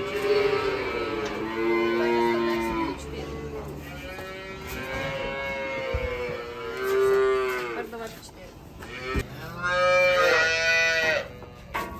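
Dairy calves mooing: several long, pitched calls in three bouts, with two calves at times calling over each other.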